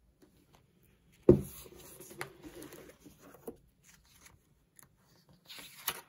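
Pages of a ring-binder parts folder being handled and turned: a sharp thump a little over a second in, then paper rustling with a click, and a louder rustle of a page turning near the end.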